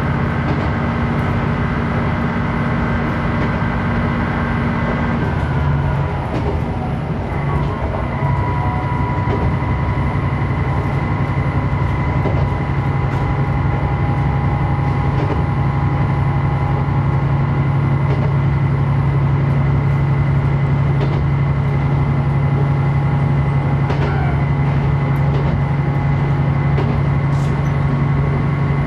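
Diesel railcar running along the line. Its engine note changes about six seconds in, then settles into a strong, steady low hum, with occasional faint clicks from the wheels on the track.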